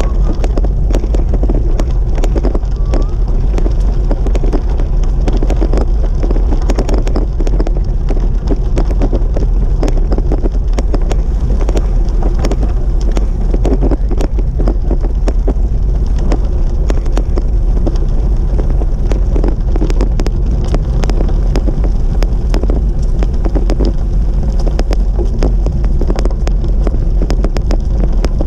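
Wind buffeting the microphone of a moving bicycle, over the steady crunch of tyres on a crushed-limestone trail, with many small rattling clicks.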